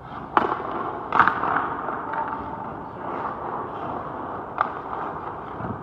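Ice hockey stick and puck impacts: three sharp cracks, one just after the start, one about a second in and one near the end, over a steady scrape of skate blades on ice.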